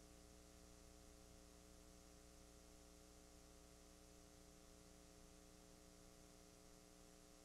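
Near silence: a faint, steady electrical hum with hiss, unchanging throughout, from a blank stretch of videotape playing back.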